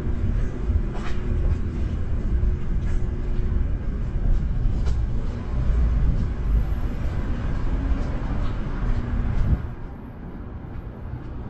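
City street ambience dominated by a loud, steady low rumble with a faint hum in it, scattered with a few light taps; the rumble falls away sharply about ten seconds in.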